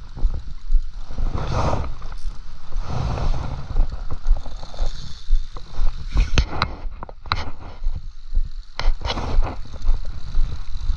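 Uneven low rumble of wind and handling noise on a body-worn camera microphone, with short scrapes and sharp clicks bunched about six to seven seconds in and again near nine seconds.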